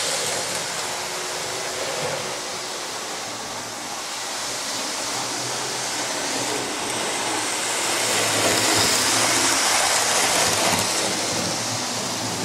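Non-digital model railway locomotives running on the layout's track: a steady whirring rumble of motors and wheels on rail, growing louder from about eight seconds in and easing off near the end.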